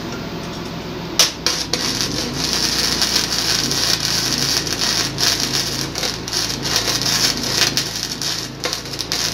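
YesWelder MIG205DS flux-core welder running .030 gasless flux-core wire: the arc strikes sharply about a second in, then crackles and spatters steadily as a bead is laid across a gap in a pipe joint at low settings.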